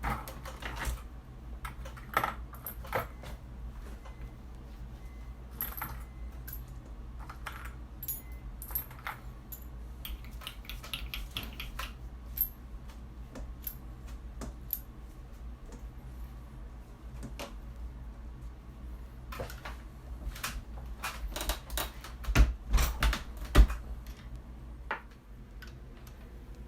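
Irregular metallic clicks and clinks of .30-30 brass cartridge cases being handled and resized in a reloading press, with a few louder knocks near the end, over a low steady hum.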